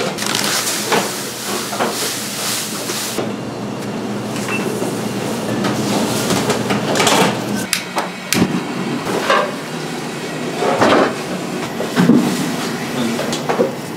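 Coarse salt grains being poured, hand-mixed and stirred with a wooden spatula in a pan: a steady gritty rustling with irregular scrapes.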